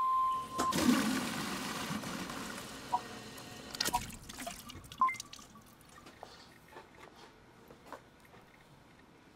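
Water dispenser beeping once, then water gushing out that tapers off over about three seconds into drips. A few clicks and a short beep follow about five seconds in.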